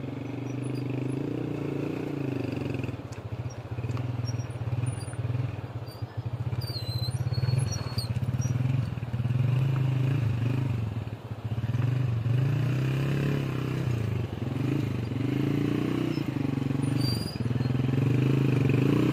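Small motorcycle's engine running as it rides slowly down a steep track of loose rock, its note rising and falling, dipping briefly about six and eleven seconds in.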